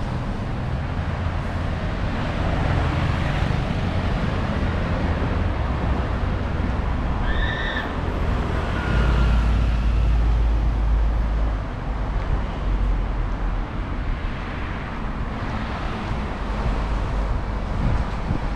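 Road traffic noise from passing cars, with a heavy low rumble of wind on the microphone that swells about nine seconds in. A single short high chirp comes about seven and a half seconds in.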